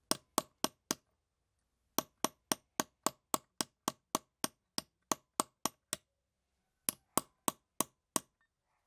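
Hammer blows on a bolt held as a punch against a brass spoon-lure blank resting on a wooden stump, forming the blank's curve. Sharp metallic taps come about three to four a second, in three runs with short pauses between them.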